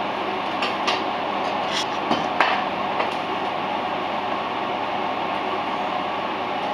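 Steady hiss of cooking at the stove, with several light clinks of utensils against plates and pans in the first three seconds, the loudest about two and a half seconds in.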